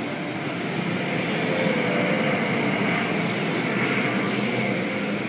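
Blue soft-cloth brushes of an automatic car wash swishing and slapping across the car's windows, heard from inside the car as a steady, dense rushing that grows a little louder about a second in.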